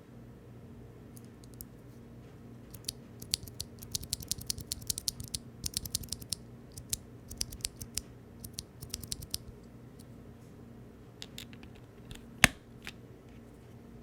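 Typing on a Mode Eighty mechanical keyboard with NK Blueberry tactile switches, aluminium plate and GMK keycaps: rapid key clacks in a fast burst, then a pause and a few scattered strokes. One much louder single stroke comes near the end.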